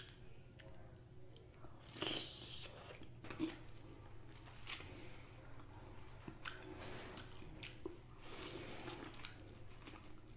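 Close-miked chewing of seafood: soft wet mouth sounds with scattered small crunches and clicks.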